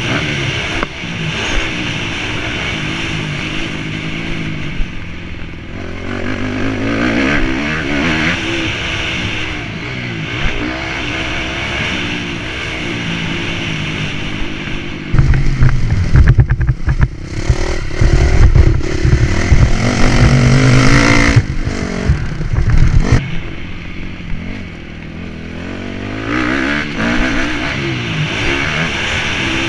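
Honda CRF250 motocross bike's single-cylinder four-stroke engine revving up and down as it is ridden hard around a dirt track. About halfway through, for some eight seconds, loud low buffeting and knocks cover the engine.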